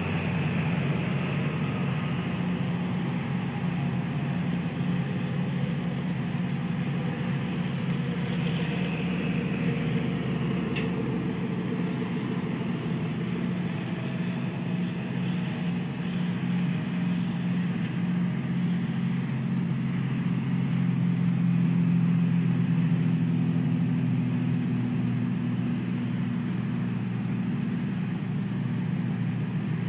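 Steady low drone of road traffic, swelling a little about twenty seconds in.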